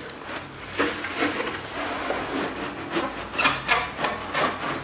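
Cardboard packaging being handled: a box and its inner sleeve sliding and rubbing against each other, with a series of irregular scrapes and light knocks.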